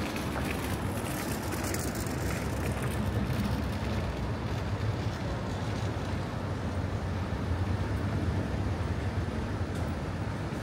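Steady low rumble of city street traffic, with a continuous background hum and no single sound standing out.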